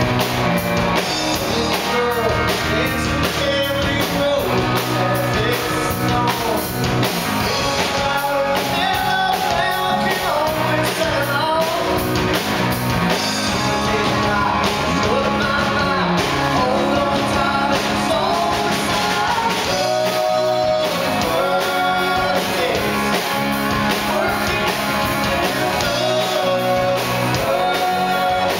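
Live rock band playing loud and steady: electric guitars, drums and violin, with a man singing lead.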